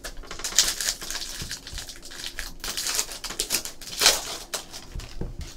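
Foil trading-card pack wrapper crinkling and crackling as it is torn open and peeled off by hand, with a sharp loud crackle about four seconds in.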